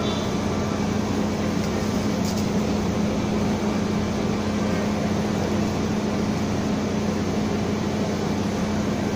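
Steady mechanical hum of air-conditioning units, a constant low drone with an even rushing noise over it.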